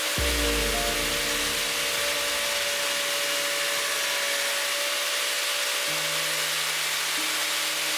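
Power saw running steadily as a plywood board is fed through its blade, cutting slots, with a steady whine and hiss. Background music with changing chords plays underneath.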